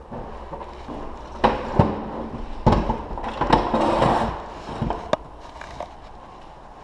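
Wall-mounted cable rack being handled by hand: about half a dozen irregular knocks and a short rattling clatter around the middle.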